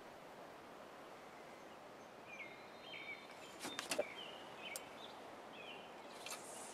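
Quiet lakeside ambience with a songbird calling in short chirping phrases in the background. A few sharp clicks come around four seconds in from a spinning rod and reel being handled, and a brief swish near the end as the rod is cast.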